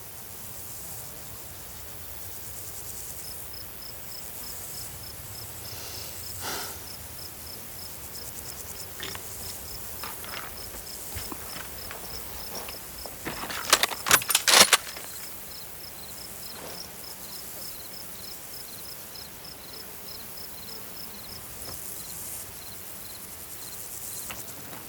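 Insects chirping in an even rhythm, about two or three short high chirps a second, with a second, slightly lower chirping joining in about halfway through. A short burst of sharp noises just past the middle is the loudest sound, with a few softer rustles before it.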